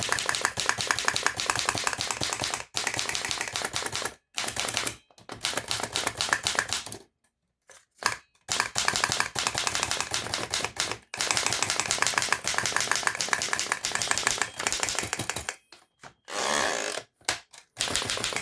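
Remington Portable typewriter being typed on: fast runs of key and typebar strikes, several seconds at a time, broken by short pauses.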